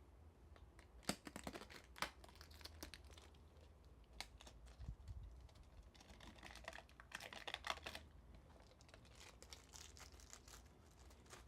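Packaging being opened by hand: faint scattered clicks and snaps in the first few seconds, then a burst of crinkling and tearing past the middle, with a few more clicks near the end.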